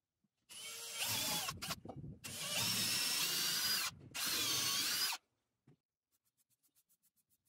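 Milwaukee cordless drill boring a long bit down through the roofing into the wood beneath for a lag-bolt pilot hole. It runs in several bursts with short stops, its whine wavering in pitch under load, and the sound is sped up to double speed.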